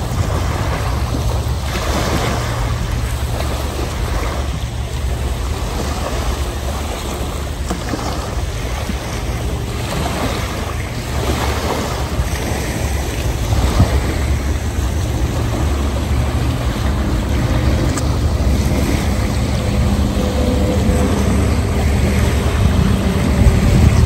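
Small waves lapping and washing up on a sandy shore, under a steady rumble of wind on the microphone.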